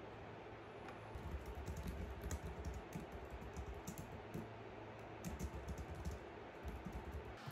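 Typing on a slim keyboard: a quick, irregular patter of key clicks that starts about a second in.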